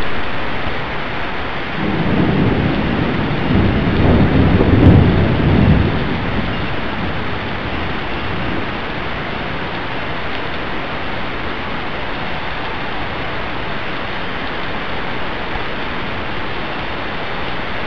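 Heavy rain falling steadily on the street and roofs. A rolling rumble of thunder starts about two seconds in, swells, and dies away about six seconds in.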